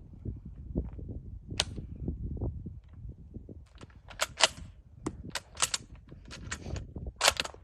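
Sharp metallic clicks and clacks from the bolt action of an M16 Berthier carbine being worked by hand, scattered at first and then in quick clusters, loudest about four and a half and seven seconds in. The 100-year-old cartridge has failed to fire.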